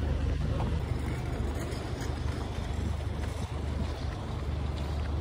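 Outdoor city street noise heard while walking: a steady low rumble of traffic mixed with wind on the microphone.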